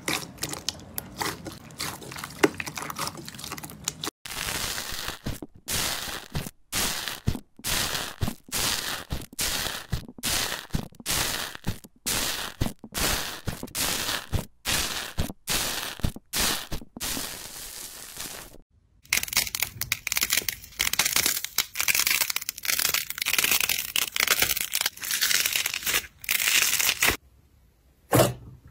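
Slime being squished and pressed by hand: first a soft wet squishing, then a long run of crisp crackling and crunching pops, several a second, that thickens into a dense crackle in the later part and stops shortly before the end.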